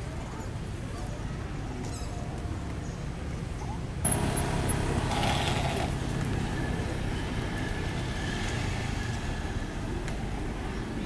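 Steady low rumble of outdoor background noise, like traffic, that turns suddenly louder about four seconds in.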